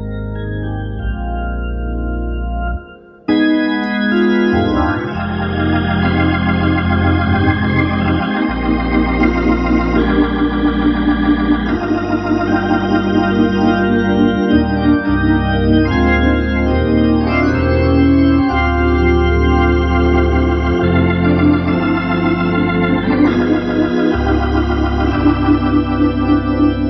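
Hammond B3 organ playing an instrumental passage: held chords over a sustained bass. It breaks off briefly about three seconds in, then comes back fuller, with wavering upper notes.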